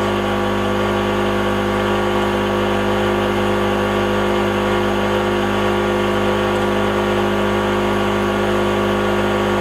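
Small two-stroke portable generator (G850) running at a steady speed, its engine note unchanging throughout.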